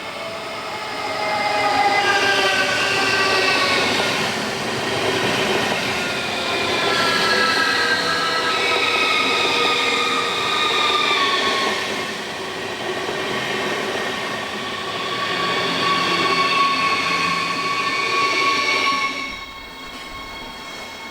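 Siemens Desiro High Capacity electric train running along the platform: several whining tones that slowly fall in pitch, mixed with wheel squeal and rail noise. The sound drops away abruptly near the end.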